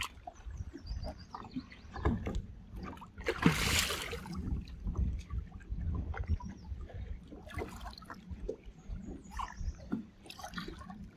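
Lake water lapping and sloshing against the side of a bass boat as a hooked fish is fought to the boat. A louder burst of hissing noise comes about three and a half seconds in.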